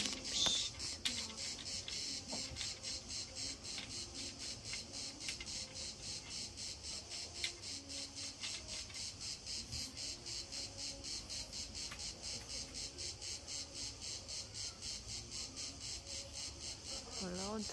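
Insects shrilling in a continuous high chorus that pulses rapidly and evenly.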